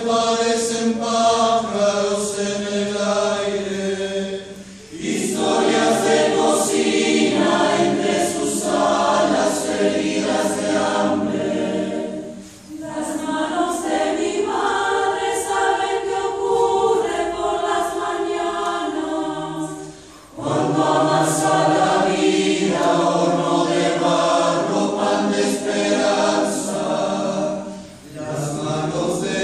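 Mixed choir of young and adult voices singing a cappella, sustained chords in phrases with short breaths between them.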